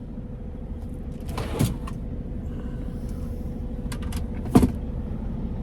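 Two short knocks and clatters, about a second and a half in and again near the end, as a small roaster oven is handled and set in place, over a steady low rumble in the truck cab.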